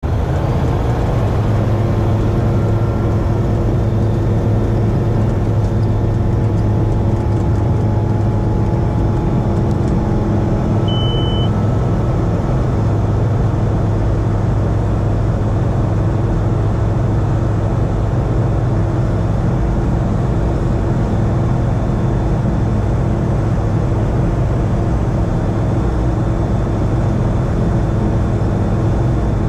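Single-engine light aircraft's piston engine and propeller running steadily at takeoff power through the ground roll, liftoff and climb, heard from inside the cockpit. A short high beep sounds once about eleven seconds in.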